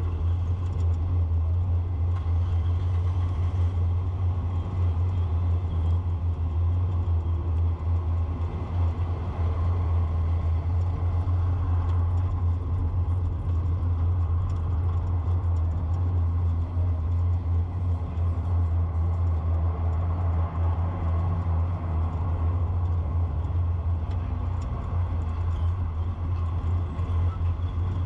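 A car driving along a street, heard from the moving vehicle: a steady low rumble of engine and road noise.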